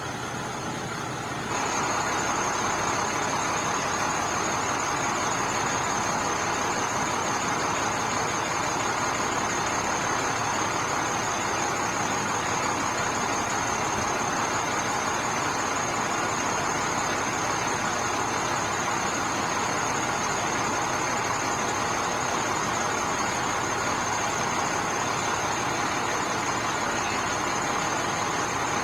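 Steady running noise of an idling vehicle engine with a thin high whine over it, stepping up in loudness about a second and a half in and then holding even.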